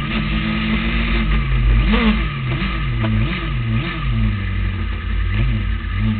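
Formula SAE race car's engine, recorded from on board, revving up and dropping back again and again as the driver goes on and off the throttle through tight cone turns. The pitch climbs and falls about six times, with the longest rise about two seconds in.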